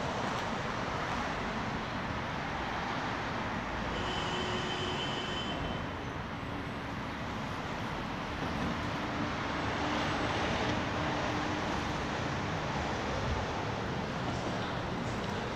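Steady city traffic noise, an even rush with no distinct events, with faint brief tones passing within it.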